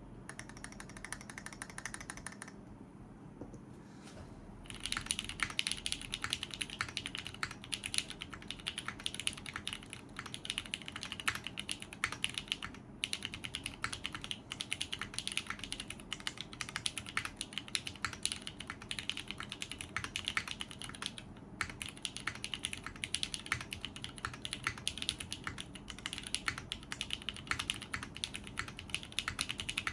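Typing on a CW88 mechanical keyboard with Cherry MX2A Orange tactile switches, a PC plate, a stainless steel backplate and Zeal v2 screw-in stabilisers. A few light keystrokes, a short pause, then steady fast typing from about five seconds in, with two brief breaks.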